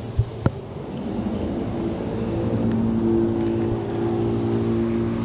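A motor running with a steady hum that grows louder about a second in, preceded by two sharp clicks near the start.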